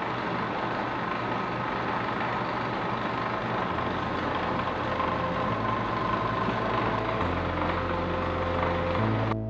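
Running lab equipment at a rotary evaporator station makes a steady mechanical hum and whir. A low drone under it changes pitch in steps a few times.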